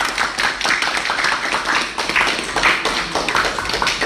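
A group of young novice monks clapping, uneven and overlapping at several claps a second, with lively chatter underneath.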